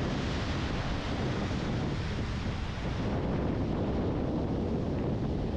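Surf breaking and washing over black volcanic rocks in a steady rush, with wind blowing on the microphone.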